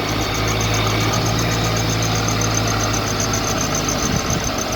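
Car engine running with a rapid, even, high-pitched chirping squeak from the front accessory drive. At first it was taken for a slipping alternator belt, but the owner traced it to the alternator itself, where the rotor had been rubbing against the stator.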